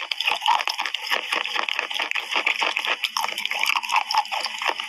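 Close-miked wet chewing of a mouthful of soaked chalk: sticky, wet mouth sounds with a dense run of small crackles.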